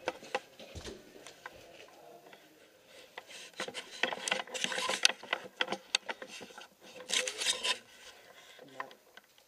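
Clothing and gear rustling and rubbing close to the microphone, with scattered sharp clicks. It is louder in two spells, around four to six seconds in and again about seven seconds in.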